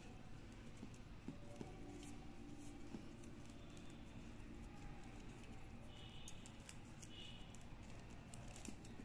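Faint light clicks and rustling of plastic craft wire strands being pulled and knotted by hand.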